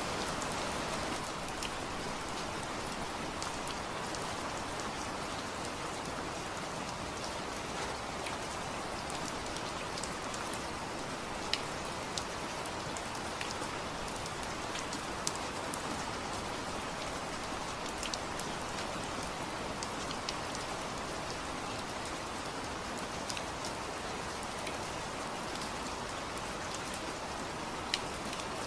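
Steady rain falling on a surface, an even hiss with many individual drops ticking through it; a few single drops land noticeably louder.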